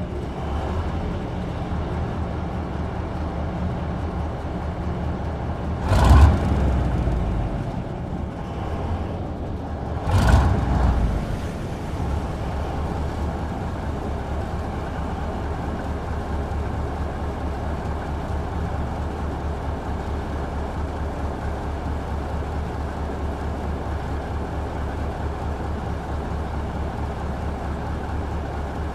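Motor boat engine running steadily with a low drone, with two brief louder surges of noise about six and ten seconds in.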